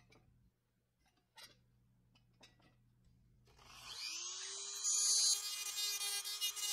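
A few faint taps, then about four seconds in a handheld rotary tool spins up with a rising whine and settles to a steady high whine. From about a second later it is louder and rougher as the bit grinds against the end of a toy car's steel wheel axle.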